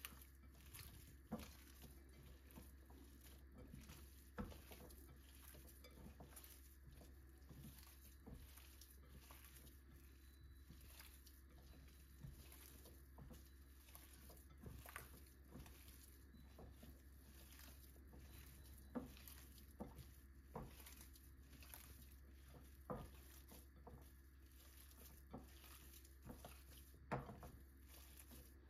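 Hands kneading raw ground beef in a glass bowl: faint squishing with scattered soft knocks of the hands against the glass, a few of them louder.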